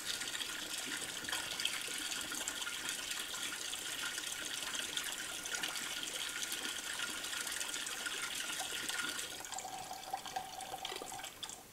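Laboratory tap running through a water aspirator, a steady rush of water as it draws water out of the bowl through tubing. The sound falls away about nine and a half seconds in and stops near the end as the tap is shut off.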